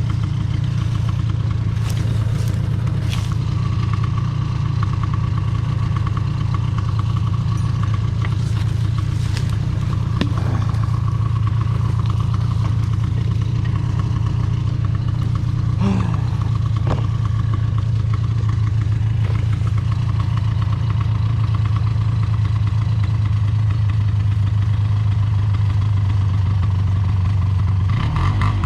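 Off-road vehicle engine running steadily at an even speed while towing, with a few light knocks and clatters.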